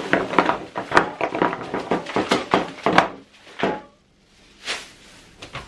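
Plastic shopping bags rustling and crinkling while PVC pipe fittings and spray-paint cans are pulled out and knocked down onto a wooden desktop: a quick run of knocks and clatter for about four seconds, then one or two single knocks.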